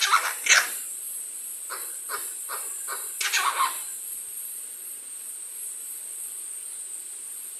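A pet green parrot calling: two loud calls at the start, a quick run of four short calls about two seconds in, then a longer call at about three seconds.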